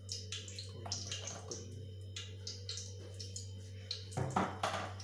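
Hot oil sizzling and crackling in a frying pan, with irregular pops and a louder flurry of crackles about four seconds in, over a steady low hum.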